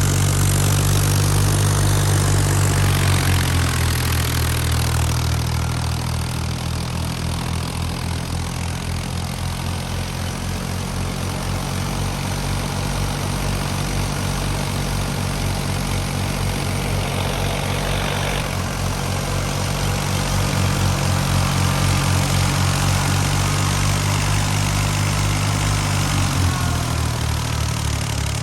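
Old Fiat 480 tractor's diesel engine running steadily with a pulsing beat. Its speed drops a few seconds in, picks up again about two-thirds of the way through, and drops once more near the end.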